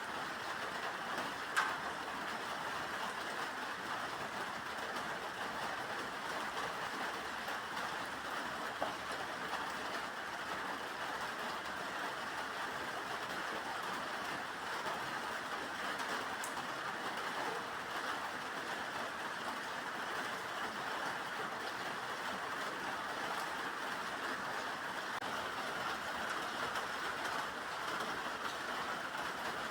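Steady rain, an even unbroken hiss with a few faint isolated ticks of drops.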